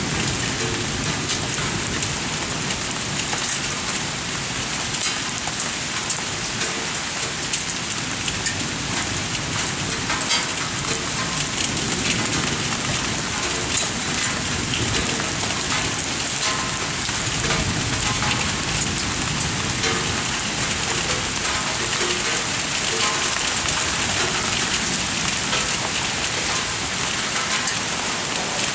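Heavy thunderstorm rain pelting surfaces: a dense, steady patter shot through with many sharp ticks of impacts.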